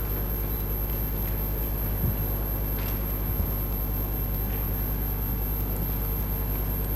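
Steady low electrical hum and room noise on an open microphone feed, with a faint knock about two seconds in and another about three and a half seconds in.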